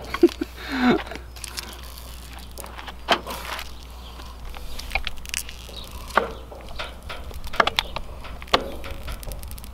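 Chef's knife slicing tomatoes and a block of mozzarella on a wooden cutting board, with scattered sharp taps and knocks of the blade against the board. A steady low hum runs underneath.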